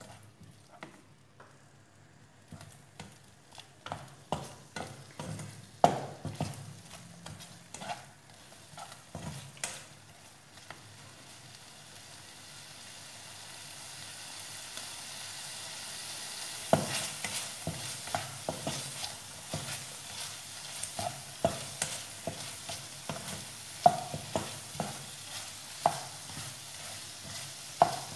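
A spatula stirring and scraping prawns around a frying pan, knocking against the pan again and again, while the tomato and soy sauce sizzles. The sizzle grows louder from about halfway through as the sauce cooks down to coat the prawns.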